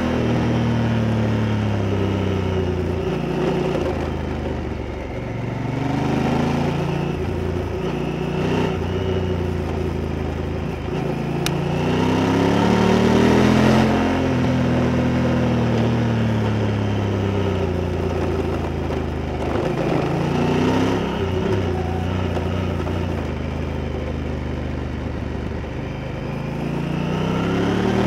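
Honda Africa Twin CRF1000L's parallel-twin engine under way, its revs climbing and dropping back again and again as the rider works the throttle and gears. One long pull rises highest about 13 seconds in before falling away.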